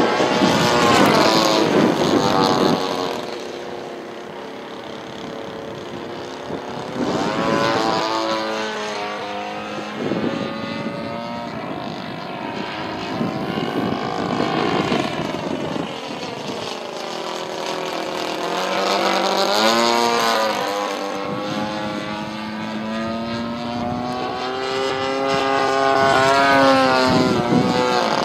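The 35cc NGH single-cylinder two-stroke petrol engine and propeller of a radio-controlled Sbach 342 aerobatic plane in flight. Its pitch rises and falls with the throttle and the plane's passes. It is loudest at the start, then swells again several times, most strongly near the end.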